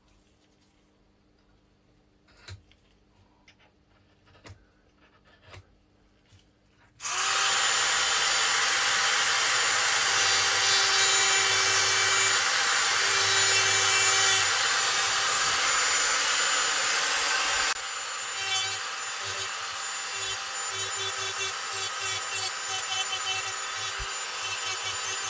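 A few faint handling taps, then about seven seconds in a high-speed rotary tool with a cut-off disc starts and runs steadily, scoring the surface of a steel saw-blade knife blade to roughen it so glue grips. Later on it drops a little in level and goes on in uneven pulses as the disc works against the steel.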